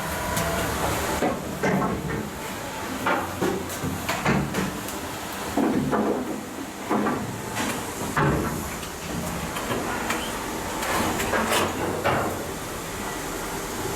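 Irregular knocks and clanks of shipyard outfitting work aboard a steel ship, spaced a half-second to a second or so apart, over a steady background noise.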